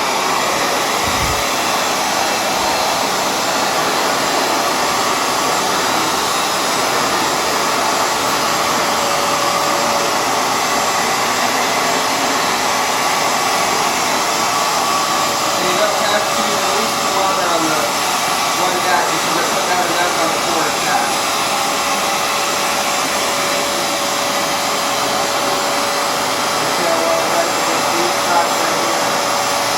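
Hoover FloorMate Edge hard floor cleaner switching on and running steadily: the suction motor and spinning brushes make a loud, even whir with a faint steady hum.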